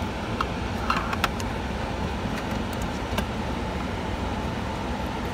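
Light plastic clicks and rattles from wiring-harness connectors being handled and pushed in behind a car's factory radio, several in the first three seconds. A steady low rumble runs underneath.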